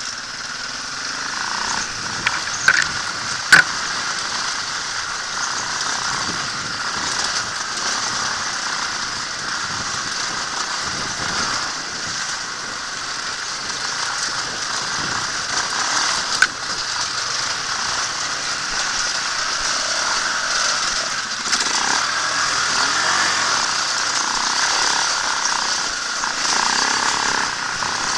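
Dirt bike engine running as the bike is ridden over a rough trail, heard from the rider's helmet camera, with a few sharp knocks about three seconds in and one more in the middle.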